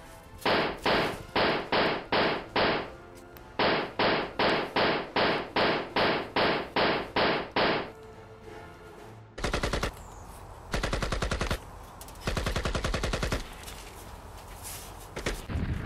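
Gunfire sound effects: two runs of single rifle-like shots at about three a second, six and then about eleven, followed by three short bursts of rapid machine-gun fire.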